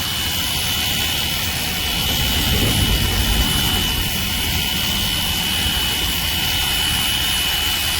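Cordless handheld pressure washer running on a DeWalt 20V battery, spraying steadily on its 15-degree setting: a constant hiss of water jet over the pump, with a thin steady high whine.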